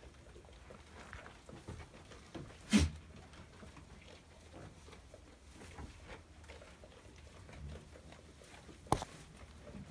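Goats snuffling and chewing their food, a soft busy patter throughout, with two sharp knocks: a louder one about three seconds in and another near the end.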